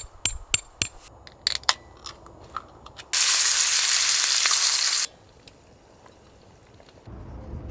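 A few sharp clicks and taps, then food sizzling loudly in a hot pan for about two seconds, starting and cutting off abruptly.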